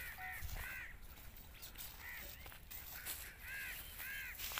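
Birds calling: short, quick up-and-down call notes, some in pairs, repeated about eight times at uneven gaps, fairly quiet over open-field background.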